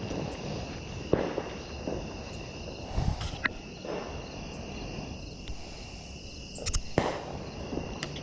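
Footsteps crunching on a gravel trail, irregular steps with a few sharper crunches, over a steady high drone of night insects.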